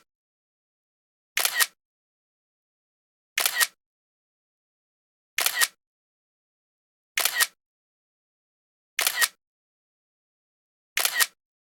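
Camera shutter clicks from the drone's photo capture, repeating evenly about every two seconds, six times, with dead silence between: the drone camera taking a series of still photos.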